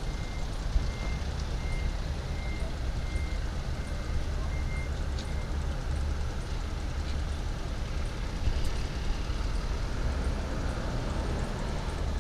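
Steady low diesel rumble of a locomotive on the Spirit of the Outback train. Over it, a high electronic beep repeats about two and a half times a second and stops about five seconds in.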